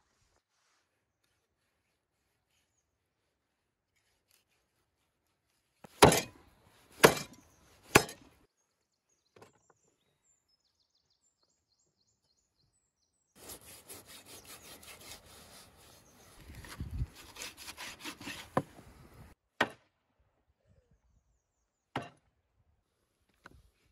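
Meat cleaver chopping beef ribs on a wooden cutting board: three heavy chops about a second apart, starting about six seconds in. Several seconds of quick rasping cutting strokes through the rack follow, then a few more single chops.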